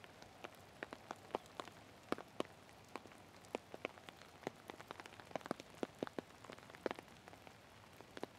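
Raindrops hitting a surface close by: separate sharp ticks at uneven spacing, a few each second, over a faint steady hiss of rain.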